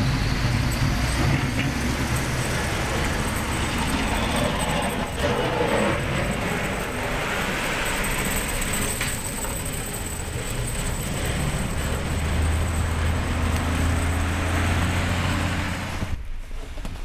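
Street traffic: steady engine and road noise from passing vehicles, with a low engine hum growing louder in the last few seconds before the sound cuts off abruptly near the end.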